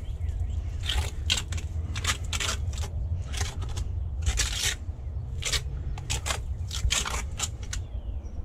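Mason's trowel scraping and spreading wet mortar on the back of a flagstone, in a quick series of short scrapes.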